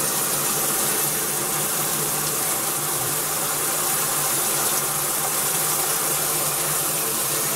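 Old Maytag top-load washer filling: a steady rush of water pouring into the tub, with a low steady hum underneath.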